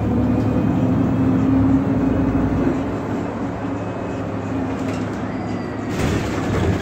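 Cabin sound of a 2019 Nova Bus LFS CNG city bus under way: the natural-gas engine and drivetrain running with a steady hum that eases down slightly partway through. A brief rush of noise comes near the end.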